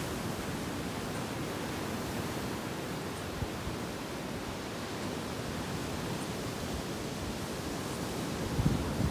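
Steady wash of sea surf, with a brief low thump near the end.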